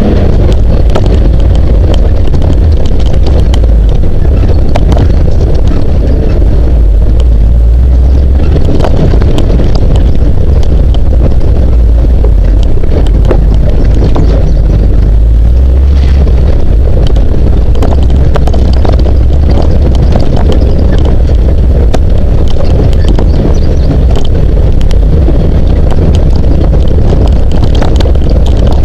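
Jeep CJ7 driving slowly over a rough dirt trail: a steady low engine and wind rumble, with wind buffeting the hood-mounted camera's microphone and frequent small knocks and rattles from the bumps.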